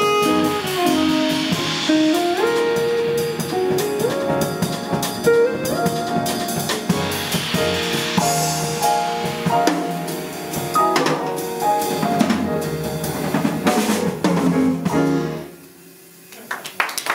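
Small jazz band playing live, with saxophone, piano, double bass, electric guitar and drum kit, and busy drums and cymbals throughout. The tune comes to its final hit about fifteen seconds in, and the sound dies away.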